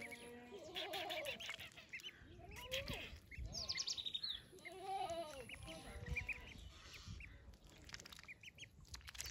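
Ducklings peeping repeatedly in short, high notes while they dabble for food in a shallow puddle. A few longer, lower animal calls come about one, three and five seconds in.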